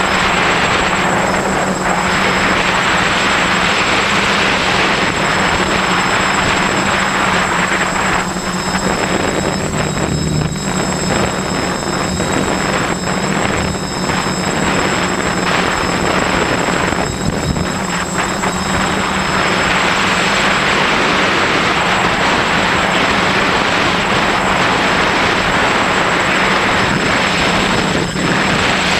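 A quadcopter's electric motors and propellers run steadily in flight: a low hum with a thin high whine. Heavy air-rush over the onboard microphone swells and eases, thinning briefly about a third of the way in and again past the middle.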